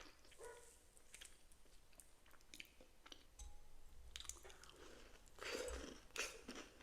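Quiet close-miked chewing of a Biscoff cookie: scattered small wet mouth clicks, a little louder near the end.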